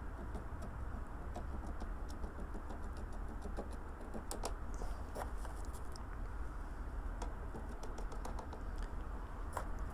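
Fine model railway ballast being spooned from a metal teaspoon onto the track and sleepers: light, irregular ticks and patter of grit and spoon over a steady low hum.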